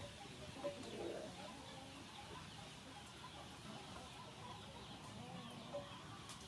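Chickens clucking faintly: a few short clucks over a steady background hiss.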